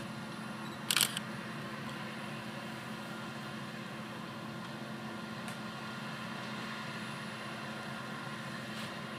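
Combine harvester running steadily while harvesting wheat: a continuous mechanical hum of its engine and machinery. A brief sharp clatter about a second in.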